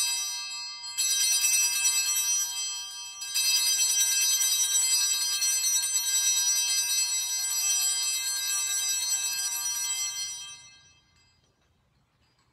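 Altar bells ringing, struck up again about a second in and again about three seconds in, then dying away near the end. They mark the elevation of the chalice at the consecration of the Mass.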